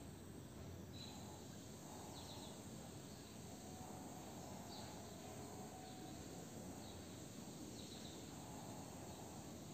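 Quiet steady background hiss with short, faint high-pitched chirps every second or two from a small chirping animal.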